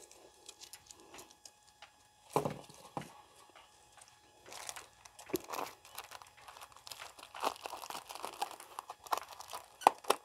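Plastic bags crinkling and rustling as food is handled by hand, in irregular crackles and light clicks that grow busier about halfway through.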